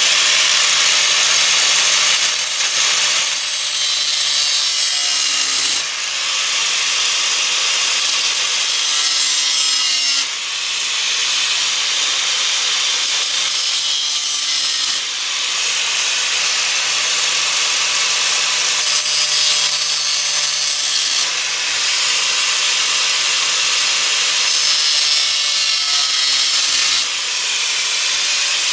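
Small electric grinder grinding down the head of a stripped steel bolt to reshape it from 9/16 to 1/2 inch: a steady, loud, hissing grind of abrasive on metal, dipping briefly about five times as the contact eases.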